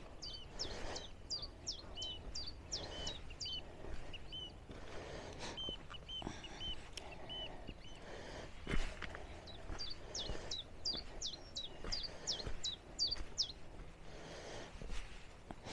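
Footsteps on a muddy, stony path, with a small songbird singing nearby: two quick runs of about eight sharp, high, downward-slurred notes, with a short run of lower notes in between. A sharper knock of a step on stone comes about nine seconds in.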